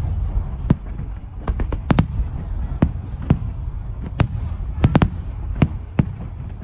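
Fireworks display: a rapid, irregular string of sharp bangs and cracks, a dozen or more in a few seconds, over a continuous low rumble.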